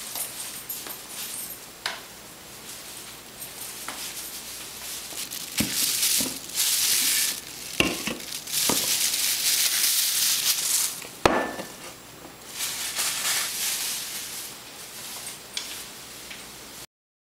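Kitchen handling sounds: a beer can and other things knocked and clinked on a countertop, with two long stretches of loud hissing in the middle. The sound cuts off suddenly near the end.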